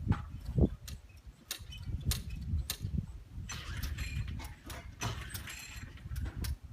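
Irregular clicks, knocks and rattles from a gas lawn mower being handled during attempts to start it, with no steady engine running.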